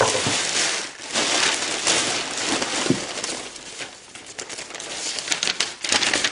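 Packaging being handled and rummaged through: continuous crinkling and rustling with small scattered crackles and clicks.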